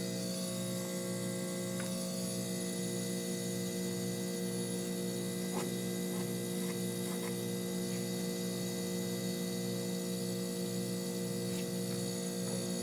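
Refrigerator compressor running with a steady hum and a low throb repeating a little under twice a second. The fridge's suction return line is icing up, which is put down to an overcharge of refrigerant.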